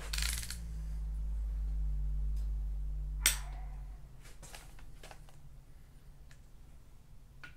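Click-type torque wrench breaking over with one sharp metallic click about three seconds in, as a VR6 cylinder head bolt reaches its 50 ft-lb setting. A few lighter clicks follow, with a low hum in the background during the first half.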